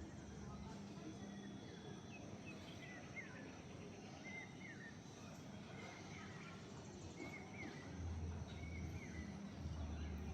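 Bulbul calling: short whistled notes that glide up or down, about one a second, over steady outdoor hiss. A low hum comes in about eight seconds in.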